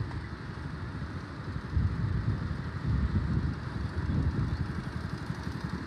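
Wind buffeting the microphone outdoors, uneven gusty rumble over a steady rushing noise.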